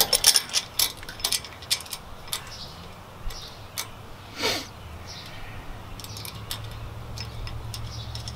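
Sharp metallic clicks and taps of bolts, washers and nuts handled against an aluminium trimmer rack bracket as nuts are started on the bolts by hand, thick in the first couple of seconds and scattered after. A low steady hum grows louder in the second half.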